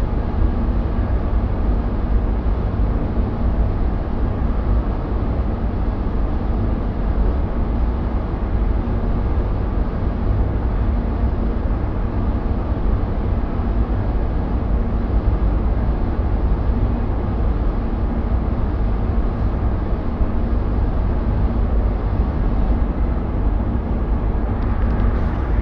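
Steady rushing air noise of a powder-coating spray booth, from the booth's extraction and the powder spray gun's air, with a faint low hum under it.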